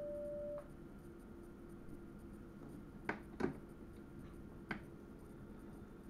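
Inside an electric train's driver's cab: a steady beep ends about half a second in, over a steady low hum, then three sharp clicks in the middle, the second the loudest.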